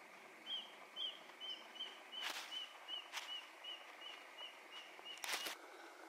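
A bird calling a steady series of short, high chirps, about two or three a second, with a few sharp clicks mixed in.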